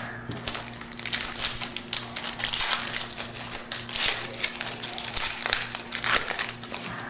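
Foil wrapper of a baseball card pack crinkling and tearing as it is ripped open by hand, with irregular crackles throughout.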